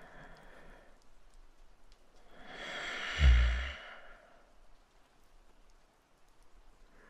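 A man's slow, sleepy breathing close to the microphone, with one long heavy sigh about three seconds in that is much louder than the soft breaths around it.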